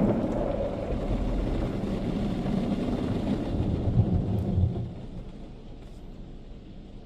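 Ryko Softgloss MAXX 5 rollover car wash working over the car, heard from inside the car: a dense spraying and machine rumble with a few low thumps about four seconds in, then it drops away and quietens.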